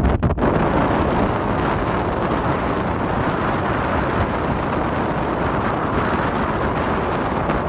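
Wind buffeting a phone's microphone: a loud, steady rushing noise.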